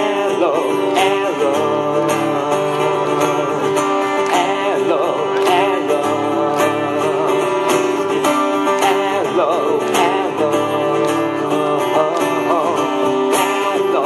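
Live acoustic pop-rock: a steel-string acoustic guitar strummed in steady chords, with a lead melody that bends in pitch over it, in a stretch without lyrics.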